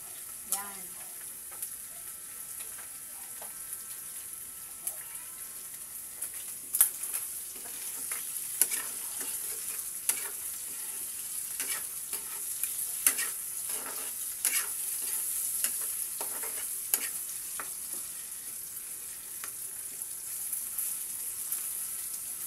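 Pork pieces sizzling in hot oil in a steel wok as they brown and render out their fat, with a steady high hiss. A metal spatula scrapes and knocks against the wok as the meat is stirred, most often through the middle of the stretch.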